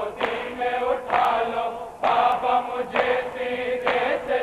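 Men's voices chanting an Urdu nauha (mourning lament) together on long held notes, with the slap of matam, hands beating on chests, about once a second.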